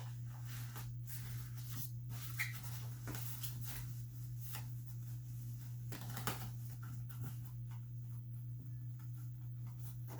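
Rustling and light clicks of a playpen's fabric and frame being handled, with two sharper knocks, about two and a half and six seconds in, over a steady low hum.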